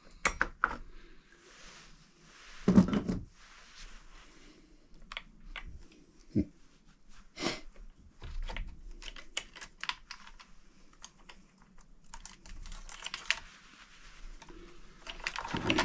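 Husqvarna Rancher 455 chainsaw being taken apart by hand for a chain change: irregular small metallic clicks and rattles as the side cover, bar and chain links are handled, with a louder thump about three seconds in.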